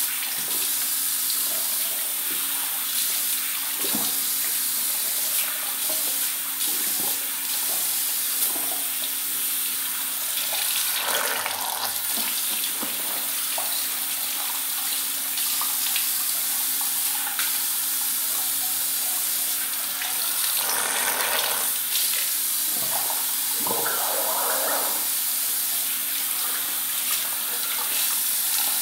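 Bathroom sink tap running steadily while teeth are brushed, with a toothbrush scrubbing over the sound of the water and a steady low hum.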